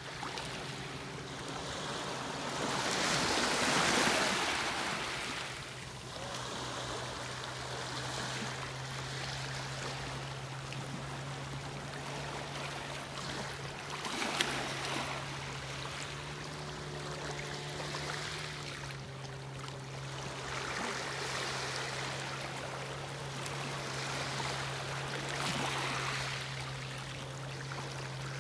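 Small waves of a calm sea lapping and washing against shoreline rocks, swelling louder every few seconds, loudest about four seconds in. A steady low hum runs underneath.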